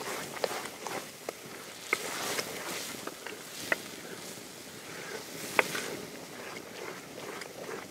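Wooden spatula stirring thick tomato masala in a clay pot, with a soft wet churning and several sharp knocks of the spatula against the pot, the loudest about two-thirds through.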